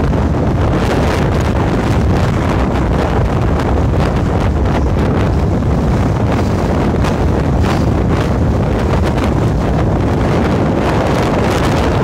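Strong mountain wind buffeting the microphone: a loud, unbroken rumble with no let-up.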